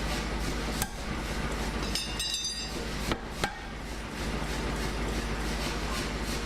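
Steady machine noise of blacksmith's shop equipment with a fast, even pulse, broken by sharp steel-on-steel knocks about a second in and twice in quick succession just after three seconds, and a short ringing metallic clink around two seconds in.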